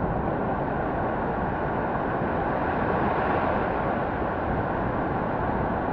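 Steady rushing of ocean surf mixed with wind buffeting the microphone, an even roar without separate wave crashes.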